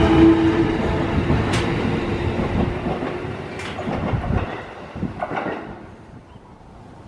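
JR Nambu Line electric train running away from the platform. Its motor whine dies out in the first second, the wheels click over the rail joints, and the rumble fades steadily until it is gone about six seconds in.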